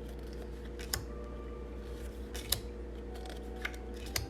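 Tarot cards being handled and laid down one after another: a few short, crisp taps of card stock, over a steady low hum.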